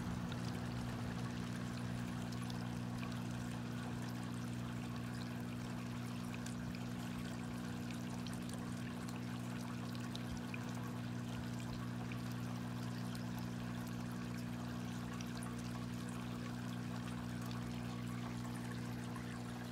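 Steady running water, like a gentle trickle or pour, over a low even hum.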